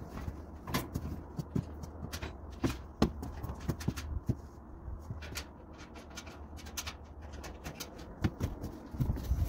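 Irregular light clicks, taps and rustling of parts being handled while a gas grill is assembled, with a few louder knocks near the end, over a steady low rumble.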